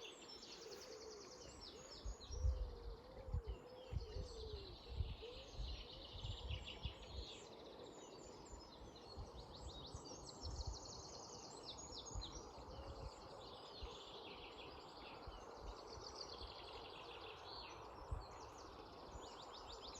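Several songbirds singing and trilling in a dawn chorus over a steady rush of flowing river water. A few low thumps come between about two and seven seconds in.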